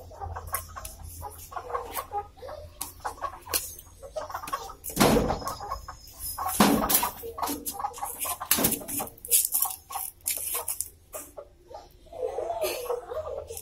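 Chickens clucking, with many light clicks and three loud short thumps about five, six and a half and nine seconds in; a clucking call sounds near the end.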